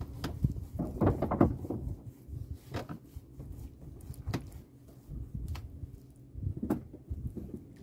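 Irregular wooden knocks and thumps in a small wooden boat as a handline is worked by hand, with a cluster of louder knocks about a second in.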